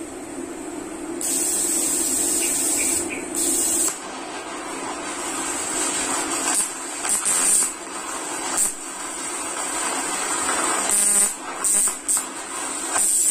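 TIG welding arc from a Caldwell TIG 250 GP inverter welder, hissing and buzzing steadily on a steel plate. The arc is struck about a second in and breaks off briefly a few times: around the third second, near the ninth, and near the end.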